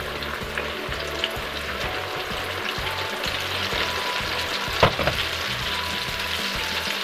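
Flour-coated chicken drumsticks sizzling as they go into a wok of hot oil to deep-fry, the sizzle growing stronger partway through. A single sharp tap about five seconds in.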